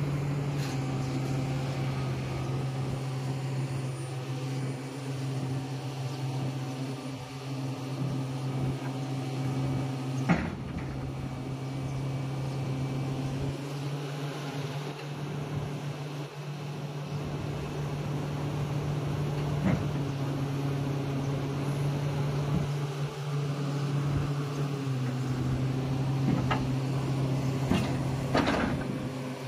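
Diesel engine of a heavy machine idling steadily, with a few sharp knocks.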